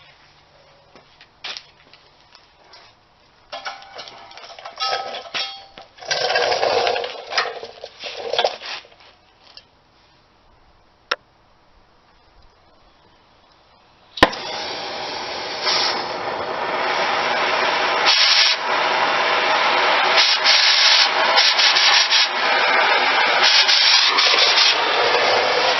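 Metalworking on steel: irregular scraping and rubbing for several seconds, then a sharp click about halfway through and a loud, steady rasping noise from a power tool working the metal to the end.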